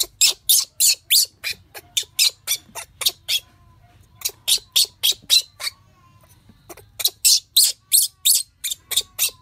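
Shrill, piercing squeals of a distressed baby monkey, short cries at about three or four a second in three runs with two brief pauses.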